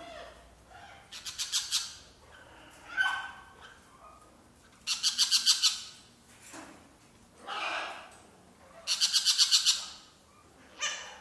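Caged parrots squawking. There are three harsh, rasping calls, each a rapid string of pulses lasting under a second, with softer calls in between.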